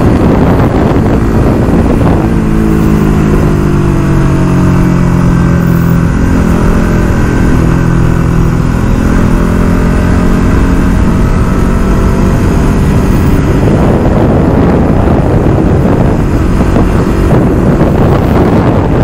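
Motorcycle engine running as it is ridden along a road, its pitch sinking slowly over several seconds and then holding, over a steady low rumble.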